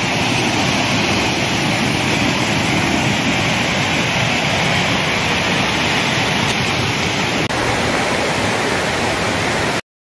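Steady, even rushing of a waterfall, cutting off suddenly near the end.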